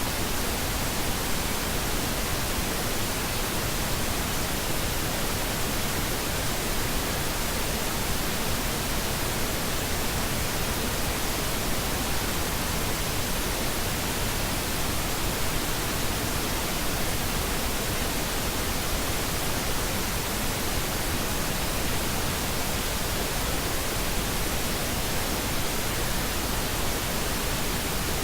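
Steady pink noise: an even, unchanging hiss spread from deep rumble to high treble.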